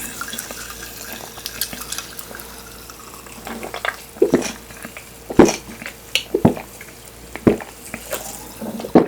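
Close-miked wet chewing of Korean sundae (blood sausage), with sharp mouth smacks about once a second in the second half.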